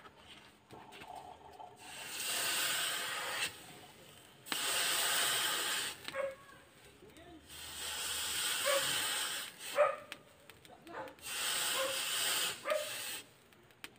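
Red-hot forged steel being quenched in water, hissing with steam in about four separate bursts of a second or two each.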